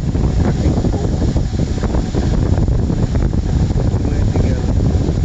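Wind buffeting the phone's microphone: a steady low rumble. A few faint clicks come from hands handling the plastic trimmer spool and nylon line.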